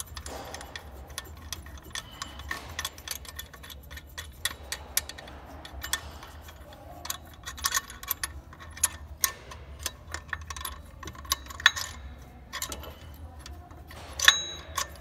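Irregular light metallic clicks and taps from hand work on an accessory belt tensor as its bolt is spun out and the tensor is handled, with a sharper knock near the end. A steady low hum runs underneath.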